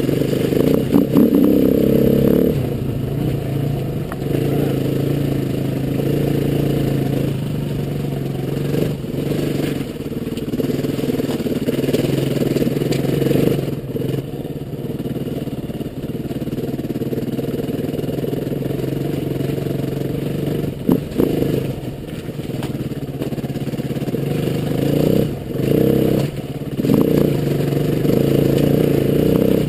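Trail motorcycle engine running at low speed, its pitch rising and falling with the throttle, with a few short knocks and rattles along the way.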